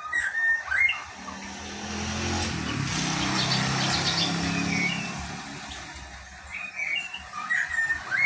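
Lesser racket-tailed drongo calling in short whistled chirps and quick up-and-down sweeps, in bursts near the start and again near the end. A motor vehicle passes in between, its engine rising and fading over about four seconds.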